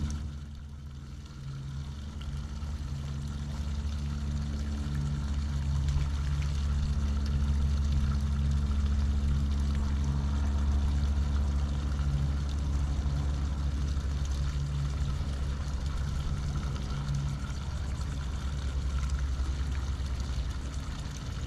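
A steady low mechanical drone with a wavering hum above it. It dips briefly at the start, then grows louder over the first few seconds and holds.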